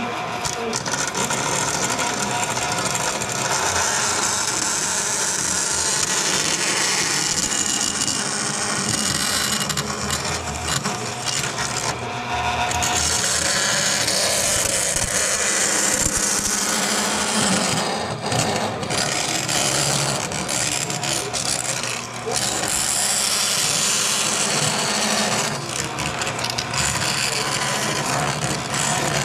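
Bandsaw cutting thin aluminum sheet: the blade makes a steady, high-pitched rasping hiss over the hum of the saw's motor. The cutting noise eases briefly a few times as the sheet is fed.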